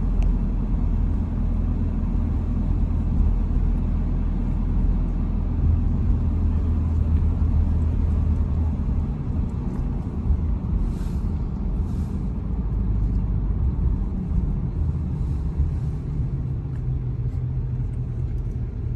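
Road noise of a moving car: a steady low rumble of engine and tyres, with two brief high hisses a little past the middle.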